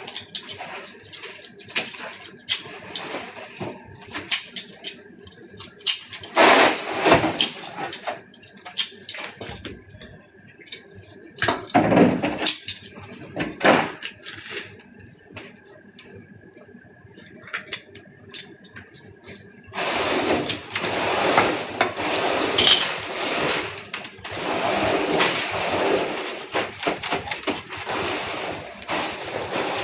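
Gilthead sea bream being cleaned and filleted by hand: irregular knocks and scrapes of knife and fish on the cutting board, with louder bursts of scraping twice, then water running over the fish for about the last ten seconds. A faint steady high tone sits underneath.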